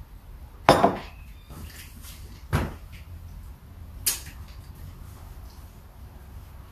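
Three short, sharp knocks or clatters about a second and a half apart, the first one doubled and the loudest.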